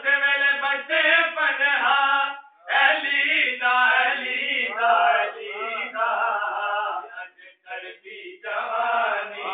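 Unaccompanied male voices chanting a devotional recitation in drawn-out, wavering phrases, with short breaks about two and a half seconds in and again around seven to eight seconds in.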